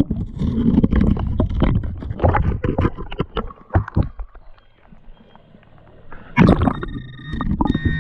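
Splashing, scraping and clunking of digging for a metal-detector target in a shallow riverbed, loud and uneven, easing off for a couple of seconds before starting again. Near the end a steady high electronic tone from the metal detector comes in and holds.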